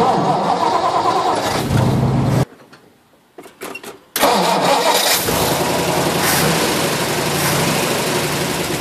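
1959 Ford F-100's 332 FE V8 cold-started after sitting about a year and a half: the starter cranks and the engine catches for about two seconds, then after a short quiet break the engine runs steadily and settles into an even idle.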